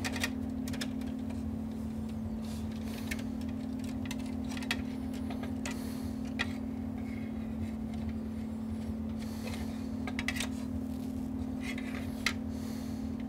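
Thin wire leads rustling and ticking against each other and the metal chassis as a bundle is sorted by hand, with scattered small clicks over a steady low hum.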